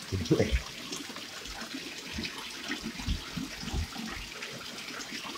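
Water running and splashing in a bathtub while a soapy puppy is washed, a steady hiss with a few soft bumps.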